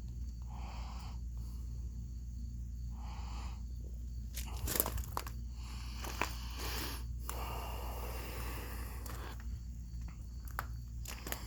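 Handling noise: a few sharp clicks and a scraping rustle through the middle, with soft breaths in the first few seconds, over a steady low hum.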